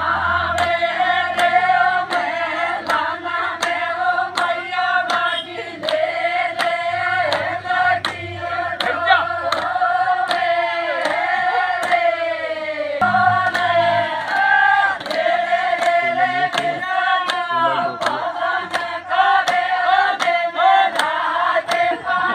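A group of women singing a folk song together in chorus, over a sharp, regular beat.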